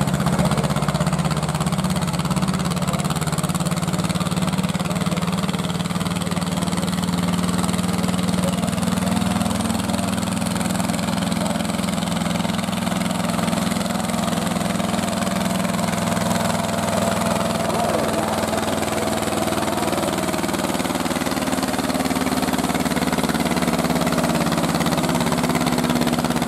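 Small vintage diesel tractor engine running steadily under load, pulling a tractor-pull sled.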